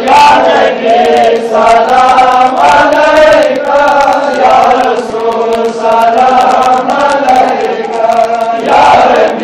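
Male voices chanting a devotional supplication in a melodic, steady chant, while the gathered men hold their hands raised in dua.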